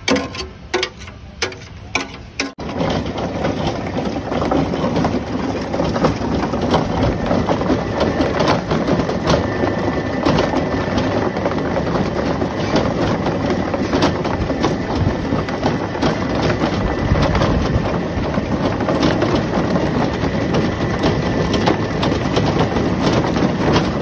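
A few sharp knocks, then from about two and a half seconds in a stainless-steel mango pulping machine running loud and steady, with a dense crackle of mango being crushed and pushed through it.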